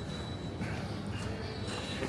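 Steady supermarket background noise: a low rumble with a faint, thin, high whine running through it.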